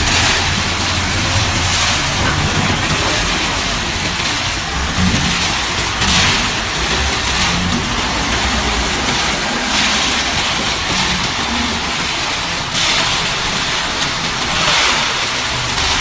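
Diesel engine of a self-loading concrete mixer truck running under load as its loader bucket works a gravel pile, the engine note rising and falling.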